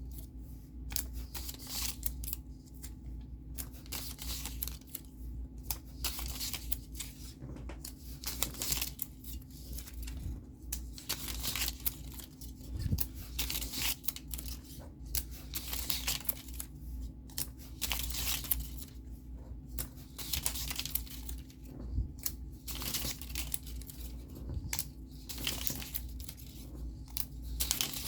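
Paper being handled, with irregular rustling, crinkling and tearing or snipping strokes. A faint steady hum lies underneath.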